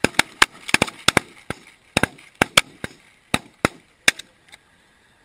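Volley of 12-gauge shotgun fire from several hunters shooting at a passing flock of geese: about fifteen sharp, loud shots, some nearly overlapping, that come thick at first and thin out over about four and a half seconds.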